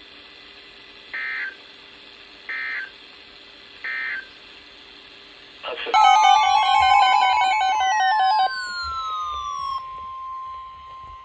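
Three short bursts of Emergency Alert System data tones about a second apart, the end-of-message signal closing a weather radio broadcast. About six seconds in, a loud jumble of warbling electronic tones with several falling glides begins and settles into one steady high tone.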